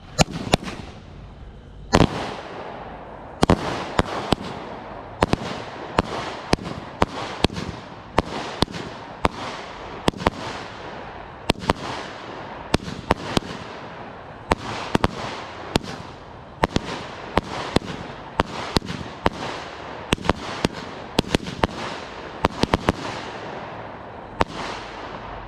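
A 25-shot, 200 gram consumer firework cake firing: a rapid series of sharp bangs, roughly one or two a second, as the shots launch and the brocade crown shells break, with a hiss between them.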